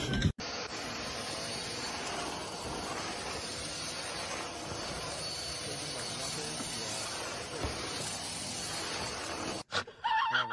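Vacuum cleaner running steadily, an even hiss; it cuts off abruptly near the end.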